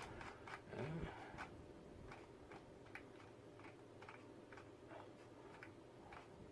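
Faint ticking, about two light clicks a second, over quiet room tone.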